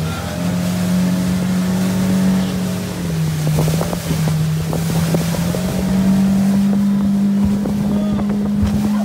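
Panga's outboard motor running under way, its pitch dropping about three seconds in and rising again a couple of seconds later as the throttle changes, with wind noise and water knocking against the hull.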